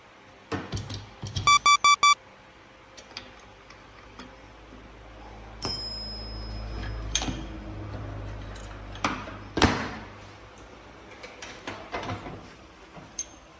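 Small metal vise parts being handled and set down on a workbench: scattered metallic clicks and knocks, with a low rumble for a few seconds after a sharp ringing hit near the middle. A quick run of four bright pings comes about two seconds in.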